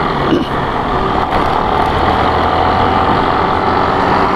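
Motorcycle being ridden on the road at a steady pace, its engine running with a steady note over road noise.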